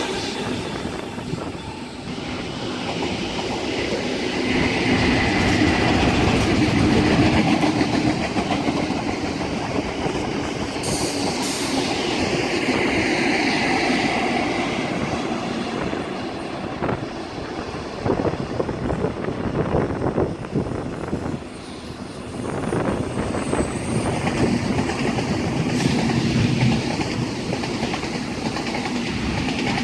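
Train passing on the tracks, its wheels clattering over the rails, running continuously with some rise and fall in level.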